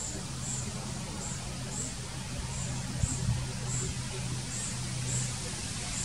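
Outdoor background of a steady low hum and rumble, with a faint, high, thin chirp repeating a little more than once a second; two soft low thumps come about three seconds in.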